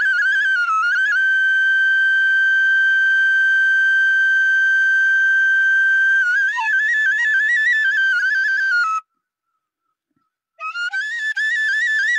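End-blown bamboo flute (bansuri) played solo, high and clear. It holds one long steady note for about five seconds, then breaks into quick ornamented runs. It stops for a breath of about a second and a half some nine seconds in, then comes back with a rising phrase and wavering notes.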